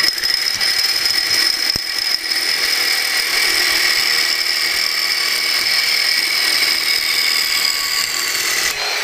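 Reciprocating saw running and cutting with a Diablo carbide-strip blade whose carbide strip has completely blown out, so it cuts only on the outer teeth. A loud, steady run with a high whine, which eases in pitch and changes abruptly to a lighter, quieter running sound near the end.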